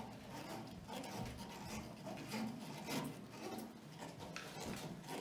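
Faint handling sounds of valve knobs being turned on a breathing-air cascade filling panel: small irregular clicks and rubbing.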